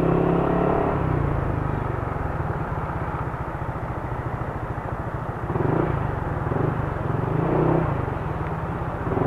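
Yamaha NMAX scooter engine running under way, a steady low drone whose pitch shifts a little with the throttle.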